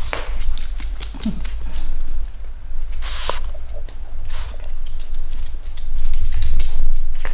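Microphone handling noise as the camera rubs and bumps against a dog's fur: low rumbling, with rushing scrapes about three seconds in and again near the end, and scattered light clicks.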